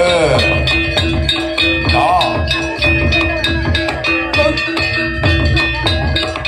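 Javanese jaranan ensemble music: dense drumming with ringing metallophone notes held over it and a wavering melody line that swoops up and down near the start and again about two seconds in.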